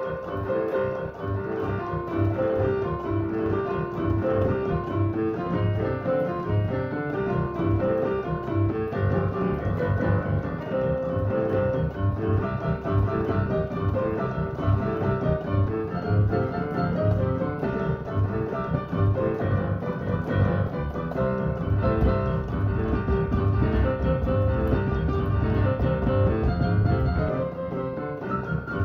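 Boogie-woogie played on a digital piano: a steady, driving bass pulse under busy right-hand chords and runs, softening a little near the end.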